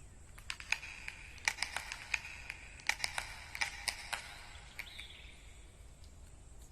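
A quick irregular run of light clicks and taps, about fifteen in three and a half seconds, with a faint high whine under them. A short falling tone follows near the end.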